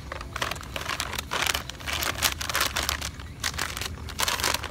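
Snack bag crinkling as it is handled and its top folded over: a dense run of irregular sharp crackles with short pauses.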